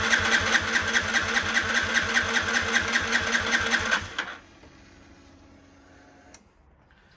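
Aprilia RS4 125's single-cylinder four-stroke engine cranked over by its starter, with a compression gauge screwed into the spark plug hole and the fuel injection disconnected so it cannot fire. It makes an even, rhythmic pulse of compression strokes that stops about four seconds in. The gauge reads 200 psi, a healthy cylinder that is not losing compression.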